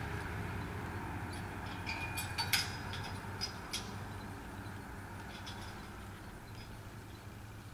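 A few light clicks and clinks, the loudest about two and a half seconds in, over a low background rumble that slowly fades.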